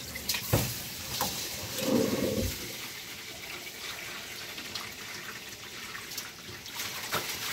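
Kitchen tap water running and splashing in a bowl as rice is washed, with a few light knocks in the first second or so. This is the first rinse, the water that is to be poured off quickly.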